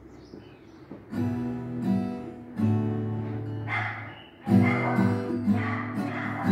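Acoustic guitar strummed: after a quiet first second, a few single chords are struck and left to ring, then from about four and a half seconds in a steady rhythmic strum sets in as the introduction to a song.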